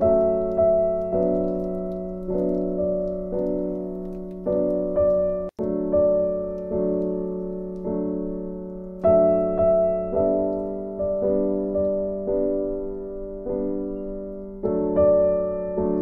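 Background piano music: notes struck about twice a second and left to ring over a held low tone. It cuts out for an instant about five and a half seconds in.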